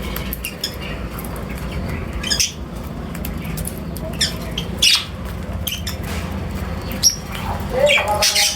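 Birds calling in short, sharp chirps and squawks, about eight scattered calls, with a louder squawk near the end, over a steady low background rumble.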